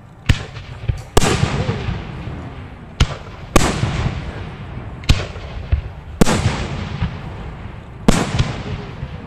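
Aerial fireworks going off at close range: about seven sharp bangs, unevenly spaced a second or two apart. The louder bangs each trail off in a long fading hiss.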